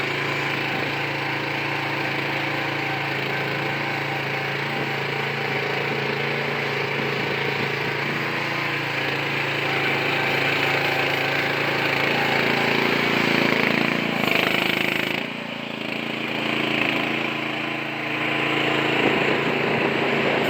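1.5-ton mini excavator's engine running steadily; in the second half its pitch and level shift as if under changing load, with a brief drop about fifteen seconds in before it picks up again.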